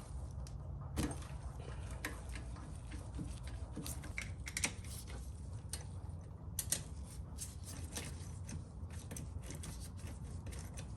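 Irregular light metallic clicks and taps from hand tools working on the motorcycle's final-drive bolts, a few louder knocks among them, over a steady low hum.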